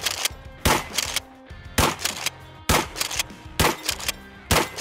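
A 12-gauge H&R Pardner Pump shotgun fired five times, about one shot a second. The pump is racked and the spent shells are ejected between shots.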